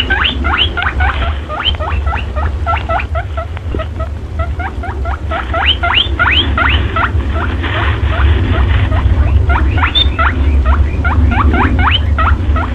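A rapid, continuous run of high, squeaky chirps, each sweeping sharply up in pitch, several a second, over a steady low hum. It is a looped lure recording of small-animal squeaks, played as a calling sound to draw perentie monitor lizards.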